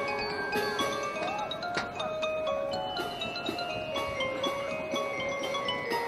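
Marching band front ensemble playing a quiet mallet-percussion passage: vibraphone and other keyboard-percussion notes struck and left ringing, with a few sliding tones among them.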